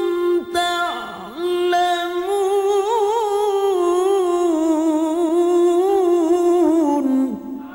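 A male Quran reciter's voice in melodic tajwid recitation. After a brief break about a second in, he holds one long ornamented note whose pitch wavers up and down, then drops away near the end.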